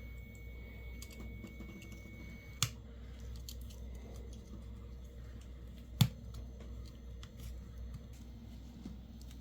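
Quiet clicks and taps of small phone parts and tools being handled during reassembly of a smartphone. Two sharp clicks stand out, about three seconds apart, the second louder.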